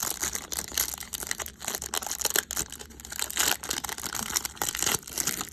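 Wrapper of a baseball card pack crinkling with dense, crackly rustling as it is handled and torn open.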